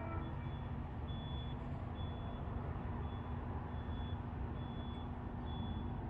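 Railroad grade-crossing warning bell dinging in a steady rhythm, about once a second, over a low rumble.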